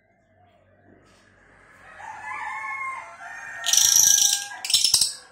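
Cililin bird singing: drawn-out pitched notes that build up about two seconds in, followed by two loud, harsh hissing bursts near the end.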